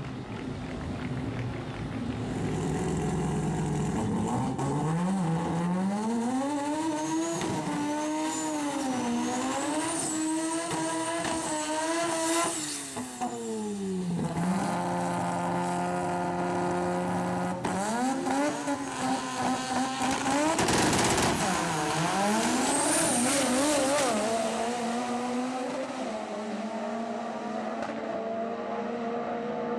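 Turbocharged 13B rotary engine of a drag-racing Mk1 Ford Escort revving up and down over and over, then held on one steady high note for a few seconds about halfway through while the rear tyres spin in a smoky burnout, then revving up and down again.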